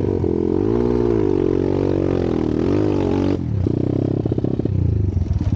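Trail motorcycle engine revving up and down while riding over a rough dirt track. About three and a half seconds in, the revs drop to a lower, choppier beat.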